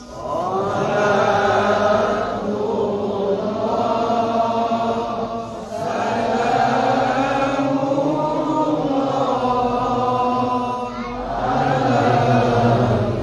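A voice chanting Islamic devotional recitation, holding long, drawn-out ornamented phrases, with short pauses for breath about six and eleven seconds in.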